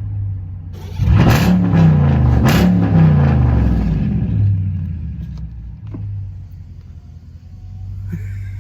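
Hemi V8 car engine idling, then revved twice in quick succession about a second in, each rev rising and falling in pitch, before settling back to a steady idle.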